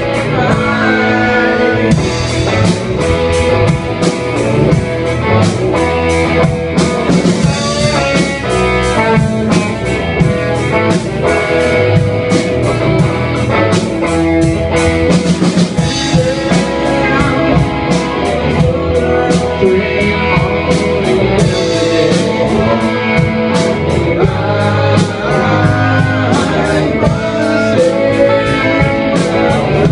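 A rock band playing loud: electric guitar, bass guitar and drum kit together, with a steady drum beat and cymbals.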